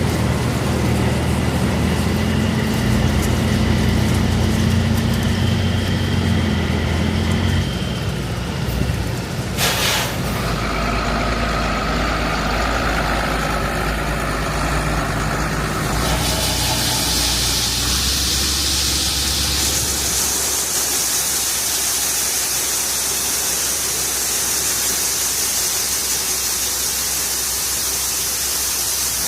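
Engine of a heavy vehicle running. A low engine hum is strongest for the first several seconds, with one sharp knock about ten seconds in; later the engine hum is weaker and a higher hiss is more prominent.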